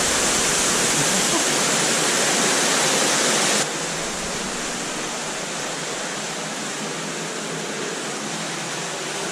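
Steady rush of flowing water from a cave stream and its small waterfalls. It drops suddenly in loudness a little over a third of the way in, then carries on evenly.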